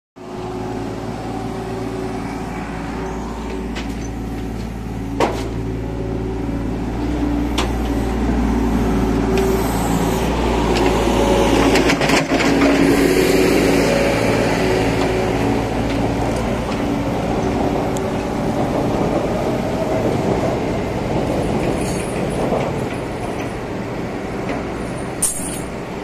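Steady hum of an engine running at a roadworks, getting louder for a while in the middle, with a few sharp clicks and knocks.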